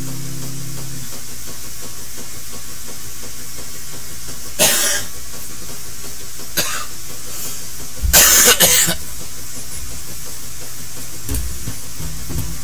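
A man coughing: one short cough about four and a half seconds in, then a longer bout of several coughs around eight seconds in, over a steady hiss. Acoustic guitar strumming dies away about a second in and starts again near the end.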